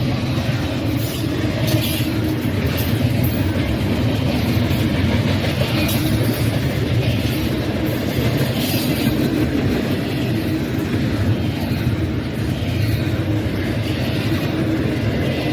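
Freight train rolling past with a steady rumble of wheels on rails and scattered clacks from the rail joints.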